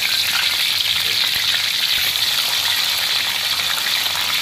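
Hilsa fish steaks frying in hot oil in a pan, a steady sizzling hiss.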